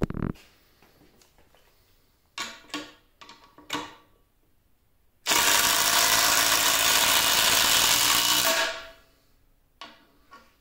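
Cordless impact driver hammering a long lag bolt into wood for about three seconds, starting about five seconds in and tailing off as the bolt seats. A few short knocks of handling come before it.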